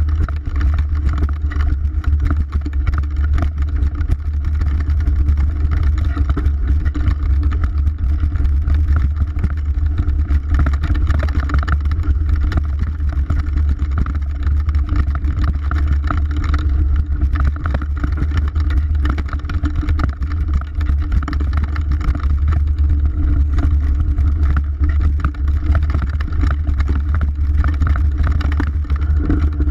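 Mountain bike riding fast down a dirt trail: a steady, loud low rumble of wind on the action camera's microphone, with tyre noise on the gravel and rattle from the bike.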